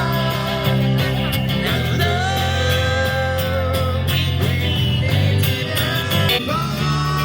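Background music: a song with guitar, a steady beat and a bass line, with a sung vocal melody.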